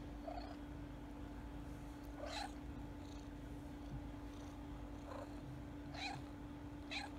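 Newborn kittens mewing: about five short, high-pitched cries spaced a second or two apart.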